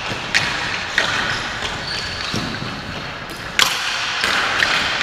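Ball hockey sticks and ball knocking on the concrete arena floor during play: a few sharp clacks, the loudest about three and a half seconds in, over the murmur of the hall.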